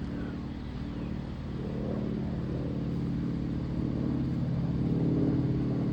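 Military aircraft engines running with a steady, pitched hum over a low rumble, growing gradually louder.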